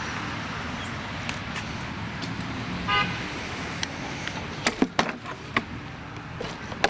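Steady outdoor background noise with a short, high, horn-like beep about three seconds in, followed by a few sharp clicks near the end.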